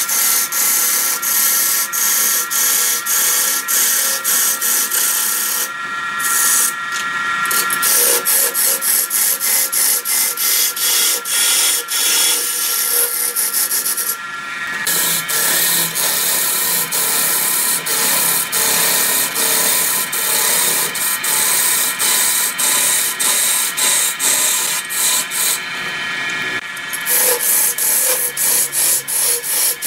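Wood lathe turning a large wooden cylinder as a turning tool cuts down its ridged surface and throws off long shavings: a loud, continuous scraping hiss that rises and falls in quick, regular pulses.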